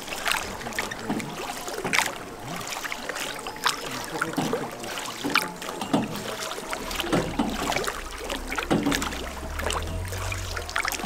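A bamboo-shafted wooden oar of a hand-rowed boat dipping and pulling through the water, with irregular splashes and knocks about every second or two. A low rumble comes in over the second half.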